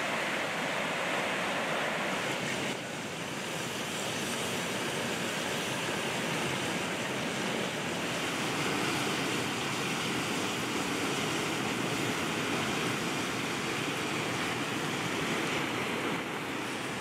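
Shallow mountain river rushing over stones. About three seconds in it gives way to a steadier, duller hiss from the wood fire under a steel pan of goose meat cooking.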